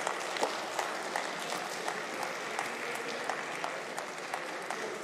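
Applause from members of parliament in the assembly chamber: an even patter of many hands, with single louder claps standing out, marking the end of a speech.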